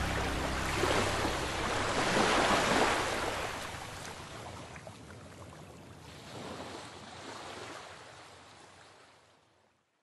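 Ocean surf washing onto a sandy beach, a steady rush that swells twice and then fades out to silence near the end. The last low notes of a song die away in the first second.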